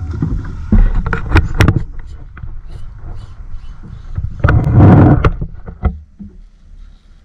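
Choppy water slapping against a small fishing boat's hull, with wind on the microphone. A few sharp knocks come about a second in, and a louder rush of noise comes about five seconds in.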